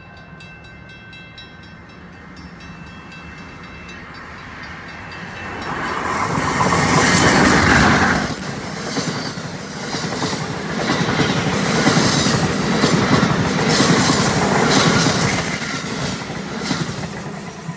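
Amtrak train hauled by an ACS-64 electric locomotive passing through at speed: a rising rush as it approaches, loudest about eight seconds in as the locomotive goes by. This is followed by a clatter of wheels over the rail joints as the Amfleet coaches pass, fading near the end.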